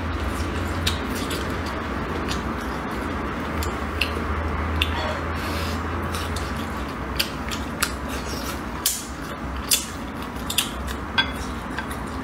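A person eating close to the microphone: chewing and mouth noises with scattered sharp clicks, more of them in the second half, over a steady low hum.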